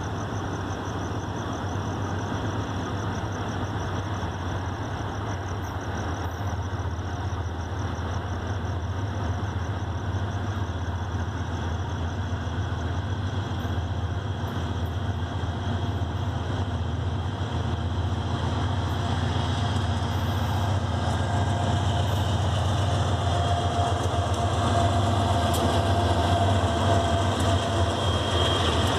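Diesel freight locomotives approaching slowly, a steady low engine rumble that grows louder until the locomotives pass close by near the end.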